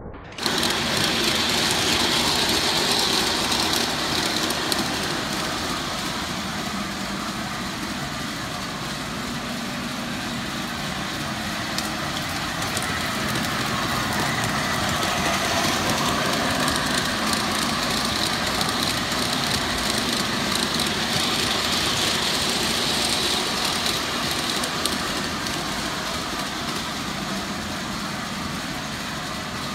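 G-scale model train running fast on metal track laid on a hard floor: a steady rolling rush of wheels and motors. It is loudest just after it starts, about half a second in, and swells again through the middle as the train passes close by.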